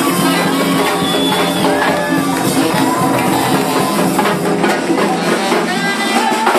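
Live salsa band playing: congas, timbales and drum kit driving the rhythm under a bass guitar, with a saxophone carrying a wavering melodic line on top.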